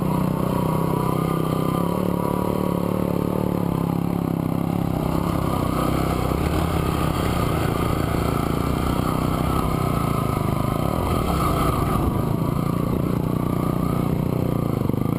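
Small motorcycle engine running steadily as the bike climbs a rough dirt trail, heard from on the bike itself, its pitch rising a little about five seconds in.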